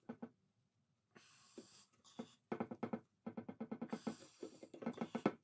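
Knipex pliers gripping and wiggling a stuck ABS wheel-speed sensor in a Skoda Octavia II front steering knuckle: an irregular run of small metallic clicks and scrapes, denser in the second half, with two short hissing sounds.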